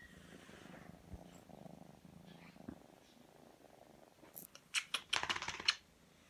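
Small black kitten purring close to the microphone, a steady low rumble. Near the end comes a short burst of loud rustling and clicking, louder than the purr.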